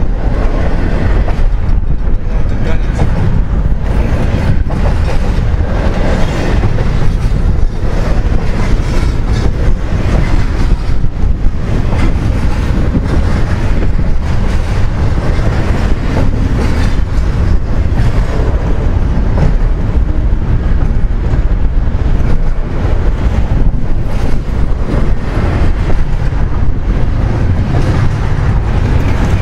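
Double-stack intermodal well cars of a long freight train rolling past close by: a steady rumble of steel wheels on rail with repeated clicking as the wheels pass over rail joints.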